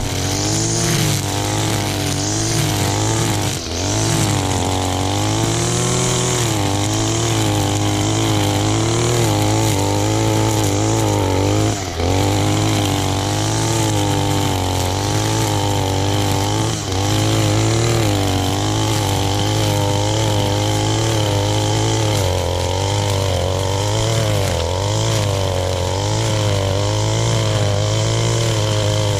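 Gas-powered string trimmer running as it cuts through ferns and weeds, its engine speed wavering up and down with the cutting and easing off briefly a few times.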